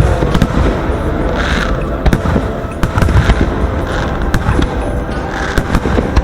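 Aerial fireworks going off: a quick series of sharp bangs and cracks over a continuous low booming rumble, with bursts of crackling hiss every second or so.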